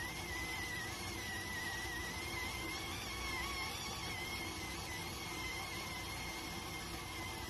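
Electric cooker steaming at the boil: a steady hiss of escaping steam with a thin, high, slightly wavering whistle.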